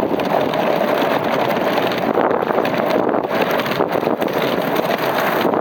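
Steady, loud wind noise buffeting the microphone on a moving dogsled, mixed with the hiss and scrape of the sled's runners gliding over river ice.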